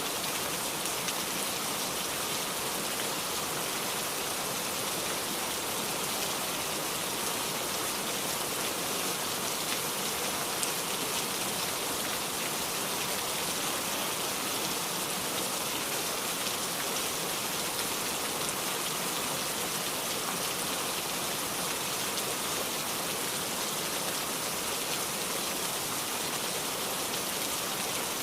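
Heavy downpour falling steadily, a dense, even hiss of rain with no letup.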